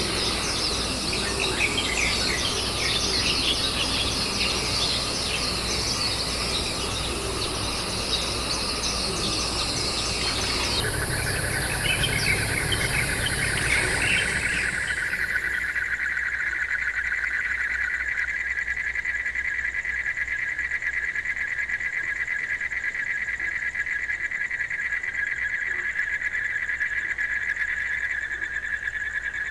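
High-pitched chirping of small birds for the first ten seconds or so. Then the sound changes to a steady, dense trilling of a night insect chorus, which keeps going.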